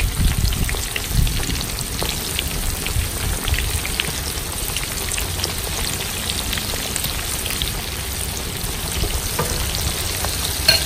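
Battered enoki mushrooms frying in hot fat in a pan: a steady sizzle with scattered small crackles and pops.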